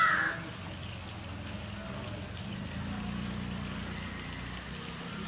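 A crow caws once at the start, over a steady low hum.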